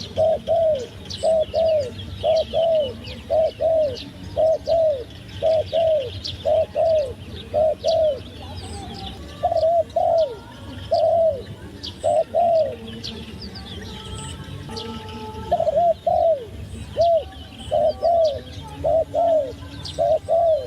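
A dove cooing in a long series of short, arched notes, many in close pairs, with a pause of about two seconds a little past the middle. Quick, high chirps from small birds run behind it.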